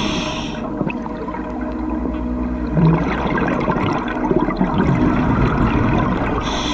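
Scuba diver breathing through a regulator underwater: the hiss of an inhalation ending about half a second in and another starting near the end, with the gurgle and rumble of exhaled bubbles between.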